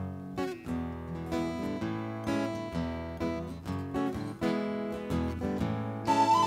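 Acoustic guitar strumming chords in an instrumental passage, with a bass line underneath; a flute-like melody comes in at the very end.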